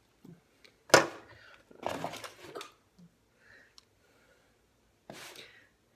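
Hands handling a felt-tip marker: one sharp click about a second in, then short rustling scuffs near 2 s and again near 5 s.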